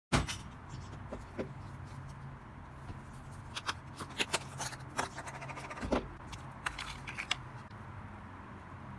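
Sandy slime being squeezed and pressed by hand, giving scattered sharp clicks and small pops over a faint steady low hum.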